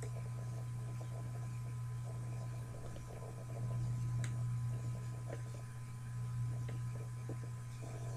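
Steady low electrical hum with two faint high steady tones over it and a few faint scattered clicks: background hum of a computer recording setup.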